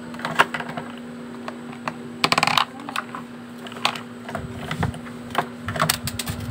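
Plastic lipstick tubes clicking against a plastic makeup organizer as they are set into its compartments: scattered sharp clicks, a short rattle about two seconds in, and a quick run of clicks near the end.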